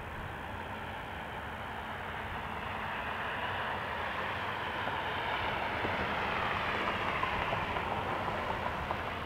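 Turbofan engines of an Airbus A320-family airliner at taxi power, a steady whooshing rumble that slowly swells as the jet rolls closer and eases slightly near the end.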